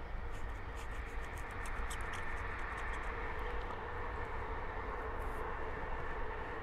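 Wind buffeting the microphone with a steady low rumble. A quick run of faint high clicks comes about a second in and lasts about two seconds.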